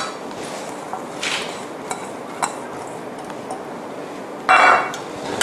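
Spoon clinking and scraping against a pot as sliced pork is tossed with herbs. A few light clinks come in the first half, and a louder scrape comes about four and a half seconds in.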